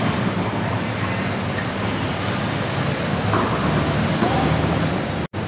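Steady ambient hall noise, a low rumble and hiss, with faint indistinct voices of onlookers. The sound cuts out for an instant near the end.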